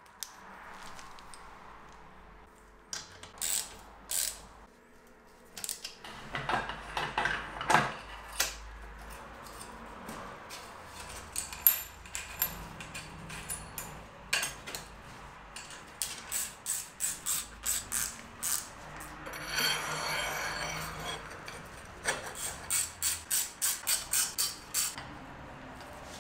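Hand tools working on bicycle parts: a ratchet wrench clicking in quick runs of strokes as bolts are tightened, among scattered clicks and knocks of metal parts being fitted.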